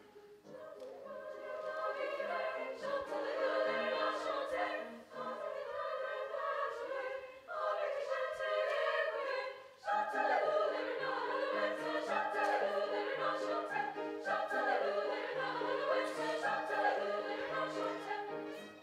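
Women's chamber choir singing, the sung phrases broken by brief breaths, with a violin playing along near the end.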